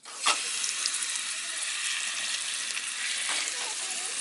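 Seasoned food sizzling in a hot frying pan: the hiss starts suddenly with a loud burst as it meets the pan, then settles into a steady sizzle.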